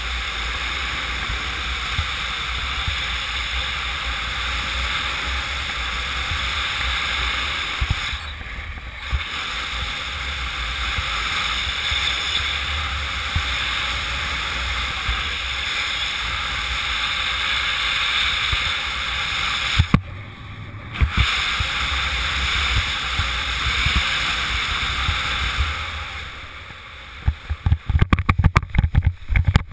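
Steady rush of wind over the pilot's camera microphone during a fast speed-wing descent, briefly dipping twice. Near the end it eases, then gives way to rapid thumps and low buffeting as the pilot touches down on grass.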